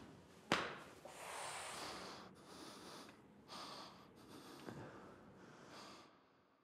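Faint breathing of two men holding each other in a hug, in several short breathy spells, with a single soft knock about half a second in.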